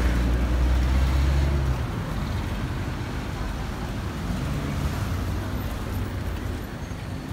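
Road traffic noise: a vehicle's low engine drone that stops about two seconds in, then a steady hum of passing traffic.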